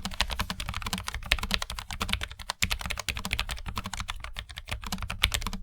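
Fast, continuous typing on a Logitech MX Mechanical Mini low-profile mechanical keyboard, a quick run of key clacks several a second.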